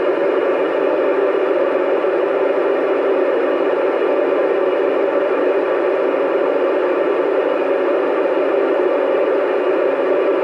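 Steady static hiss from a Yaesu FT-991A ham transceiver's speaker, with no station on the channel between transmissions.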